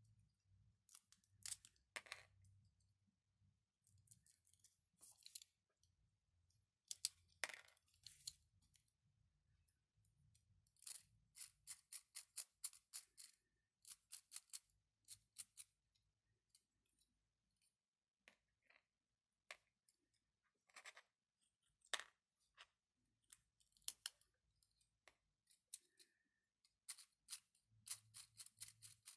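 Plastic clicks from a 3D-printed mechanical counter being handled and turned: scattered single clicks, with runs of quick ticks, about five a second, near the middle and again near the end.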